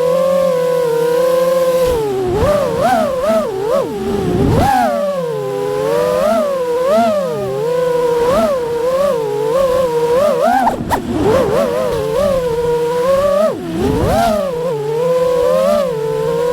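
FPV quadcopter motors whining in flight, the pitch swooping up and down quickly as the throttle is worked, with a brief sharp click about eleven seconds in.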